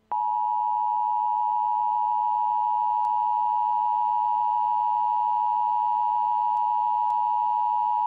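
Emergency Alert System two-tone attention signal: a loud, steady dual tone, starting abruptly and held for about eight seconds before cutting off. It marks the start of a tornado warning alert.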